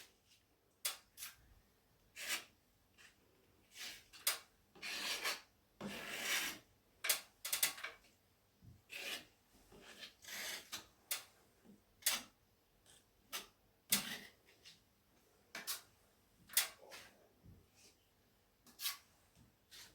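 Filling knife scraping and spreading filler across a ceiling crack: a series of irregular short scraping strokes, with a few longer swipes.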